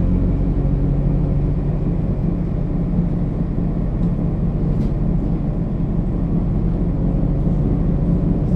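Mercedes-Benz O 530 G Citaro articulated bus engine running steadily: a low, even drone heard from inside the bus.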